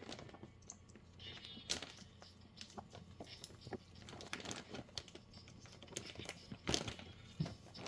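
Faint crinkling of a plastic mushroom filter bag being handled and folded, with scattered small clicks and taps as a clip is worked onto the folded top.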